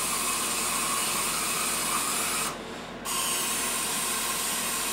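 Aerosol can of carburetor cleaner spraying steadily through its straw tube into the ports of a cylinder head, filling them to test whether the valves seal. The spray stops for about half a second midway, then starts again.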